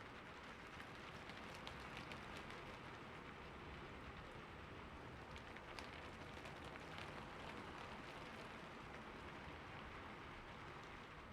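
Steady rain falling, with individual drops pattering on a surface.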